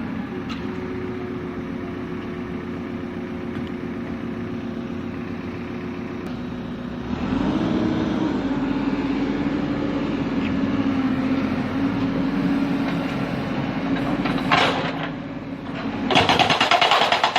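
Backhoe diesel engine running, throttled up about seven seconds in, with a single clank near the end. In the last second or so a hydraulic breaker hammer starts pounding rapidly on solid rock to crack it up.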